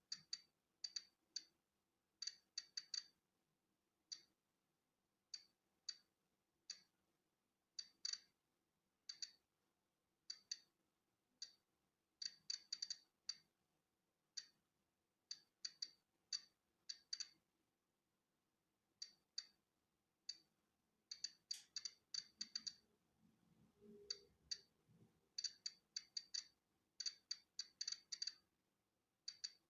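Polon EKO-C digital Geiger counter clicking as it counts natural background radiation: short, sharp, high-pitched clicks at irregular random intervals, sometimes several in quick succession.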